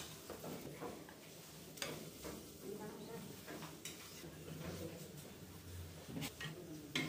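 A metal spoon clinking and scraping against ceramic plates as food is spooned out, with a few separate sharp clinks over a steady low kitchen background.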